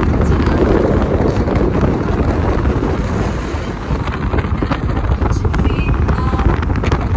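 Wind buffeting a phone microphone held out of the window of a moving car, over steady road and engine noise.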